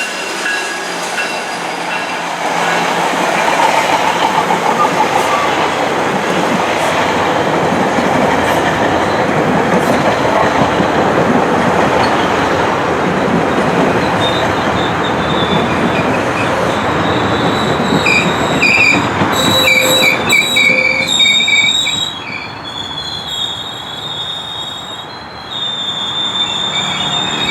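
GO Transit commuter train running on the rails with a loud, steady rumble of wheels and cars. High squealing tones from the wheels come in past the middle and carry on as the rumble dies down.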